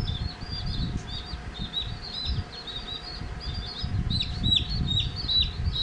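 Several baby chicks peeping continuously: short, high, falling peeps, several a second, over low rustling and bumping from handling.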